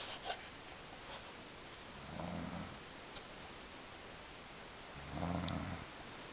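A woman snoring: two low snores, one about two seconds in and another about five seconds in, each lasting under a second.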